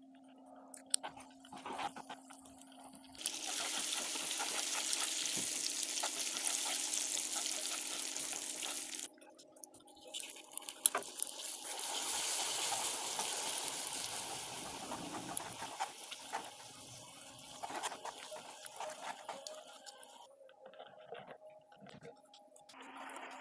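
Caramel sauce in a hot pan sizzling and hissing hard, in two loud spells, the second dying away over several seconds, with light clicks and scraping of a utensil around it.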